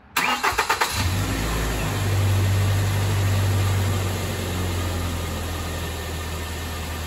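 2010 Ford Ranger's 2.3-litre 16-valve four-cylinder engine cranked by the starter for under a second, catching about a second in and running a little faster at first before settling into a steady idle. It is the first start after a fresh oil change, run a few seconds to pump oil through the new filter.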